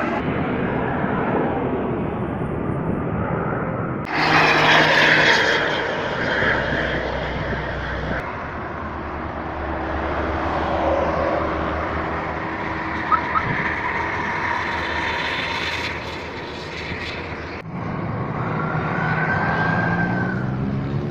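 Heavy diesel vehicles in a string of short clips: engine rumble ('ngorok'), with a loud burst of air-brake hiss ('suoss') about four seconds in. The sound changes abruptly at each cut.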